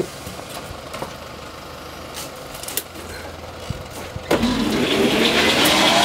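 Sawmill circular-saw machinery running with a low hum, then suddenly much louder about four seconds in, with a rising whine as it speeds up.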